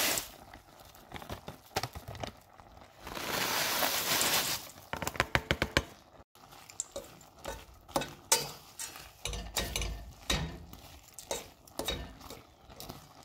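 A pouch of dry noodles and powdered Alfredo sauce mix is shaken out into a stainless steel pot of cooked pasta, a rustling hiss a few seconds in followed by a run of quick clicks as the pieces fall. Then a spoon stirs the pasta, scraping and knocking now and then against the pot.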